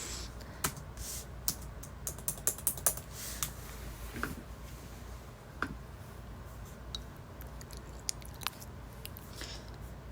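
Computer keyboard typing: a quick run of keystrokes about two to three and a half seconds in, then scattered single clicks.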